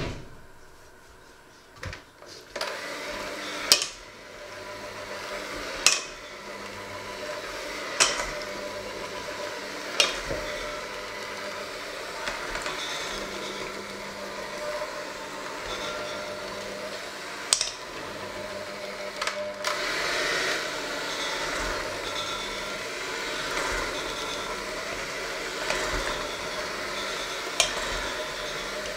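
Electric hand mixer running, its beaters working a thick dough in a stainless steel bowl. It starts about two and a half seconds in, and sharp clinks, the beaters knocking against the bowl's side, come every couple of seconds.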